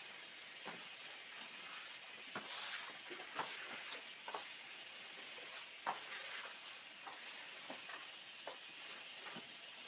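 Stiff-bristled push brush scrubbing a soaked, muddy rug: a steady wet swishing with scattered light knocks, the sharpest about six seconds in.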